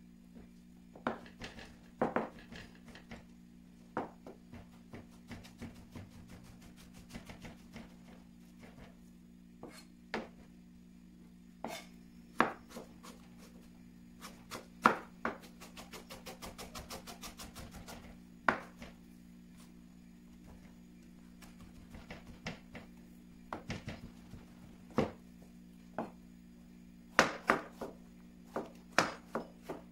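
Chef's knife chopping boletus mushrooms on a plastic cutting board: scattered single strikes of the blade on the board, with a quick run of rapid chops about halfway through.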